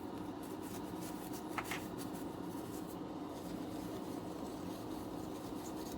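Faint light rubbing and scratching, like scrubbing a dirty soldered area clean with isopropyl alcohol, over a steady low hum.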